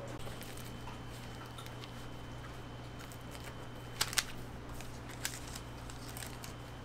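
Quiet handling sounds as gloved hands fold a cream-filled waffle and set it on paper wrappers, with two sharp clicks about four seconds in, over a steady low hum.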